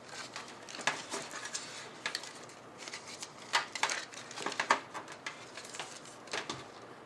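Irregular small clicks, taps and rustles of cables and plastic connectors being handled in the back of a computer case, a few sharper clicks among them.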